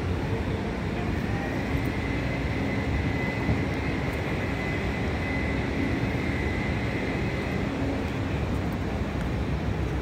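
Steady low rumble of city street noise, with a faint high whine for several seconds in the middle.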